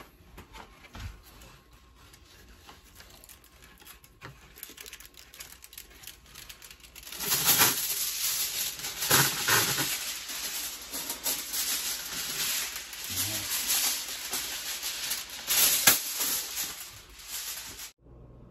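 Aluminium foil pulled off its roll and handled: faint clicks and rustles at first, then from about seven seconds in a loud crackling, crinkling rustle with a few sharper crackles, ending abruptly shortly before the end.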